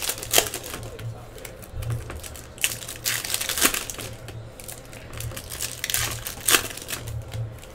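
Foil trading-card pack wrappers crinkling and tearing as they are ripped open by hand, in irregular crackles.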